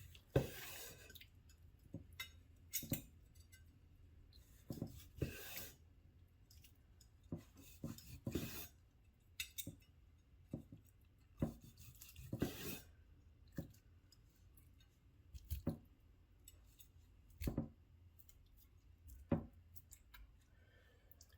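A Chinese vegetable cleaver slicing through baked chicken breasts: irregular knocks of the blade landing, with a few longer drawn slicing strokes.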